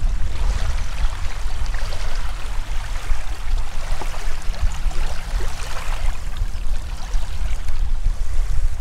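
Small waves washing and lapping onto a gravelly shore, a steady splashing wash with many small crackles, over a heavy rumble of wind buffeting the microphone.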